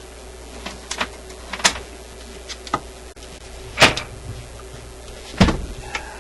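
Scattered clicks and knocks of the radio's switches and knobs being worked by hand. Two louder knocks come a little before the middle and near the end, the second with a dull thud.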